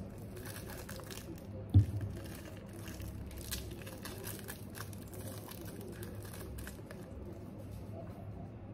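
Crinkling and tearing of a drink carton's straw wrapper being pulled off, with many small crackles over the first few seconds and one sharp thump about two seconds in.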